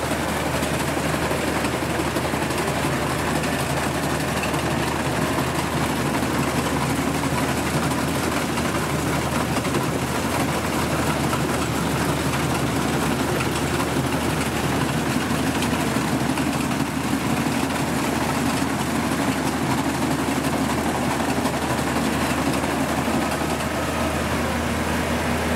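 Kubota DC-70 combine harvester's diesel engine running steadily, a constant low engine hum with machinery noise over it.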